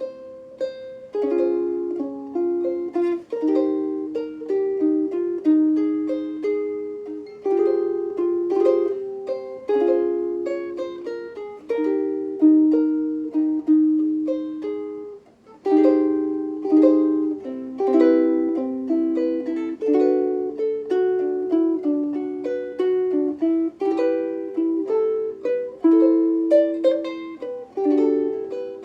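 Seilen SLVS-203 vintage-style soprano ukulele, with a one-piece Hawaiian koa top and back, played solo: a plucked melody over chords, with a brief pause about halfway through.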